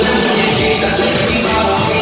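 Loud dance music with a singing voice, playing steadily.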